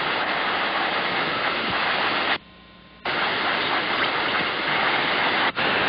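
Compressed air hissing steadily from a compressor's spray-gun nozzle as it blows across the top of a straw in water and draws the water up into a fine spray. The air cuts off for about half a second midway, then resumes.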